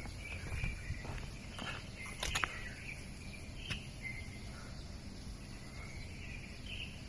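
Small birds chirping in short, scattered calls over a low steady outdoor rumble, with a couple of sharp clicks about two seconds in.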